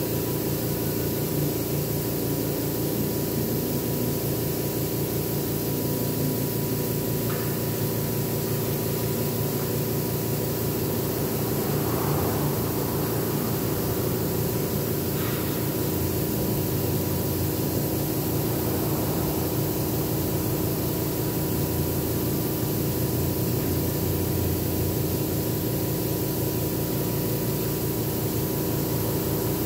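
Air compressor running steadily with the hiss of an airbrush spraying paint.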